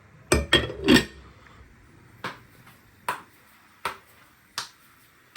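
Sharp knocks and clicks of hard objects in a kitchen: three loud knocks in quick succession, then four single clicks about three-quarters of a second apart.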